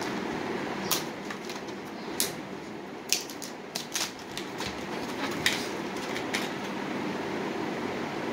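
Stiff plastic blister packaging crackling and snapping in a series of sharp clicks as it is pulled apart and a USB lighter is worked out of it, over a steady background hum.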